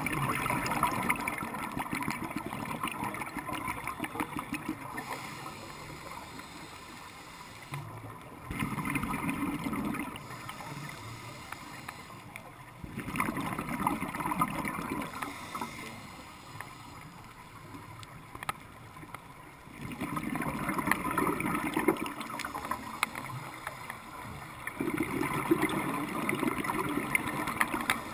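Scuba diver's regulator breathing underwater: about five bursts of exhaled bubbles, each lasting a few seconds, with quieter stretches between breaths.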